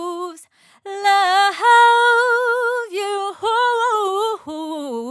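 A woman singing unaccompanied, holding long notes with a wide vibrato in several sung phrases, with a brief breath pause about half a second in. The voice is recorded through a U47-style large-diaphragm tube condenser microphone.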